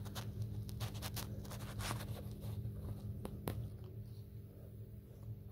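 Faint scratching and rustling clicks from a hand-held crane scale holding a bucket of scrap copper winding wire, the wires and hook shifting as the load hangs; the clicks thin out after about three seconds. A low steady hum runs underneath.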